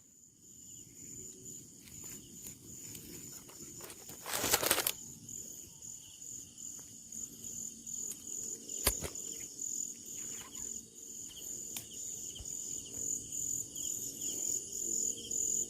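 Insects trilling steadily at a high pitch, over low rustling and handling noise, with one loud rough burst about four and a half seconds in and a sharp click near nine seconds.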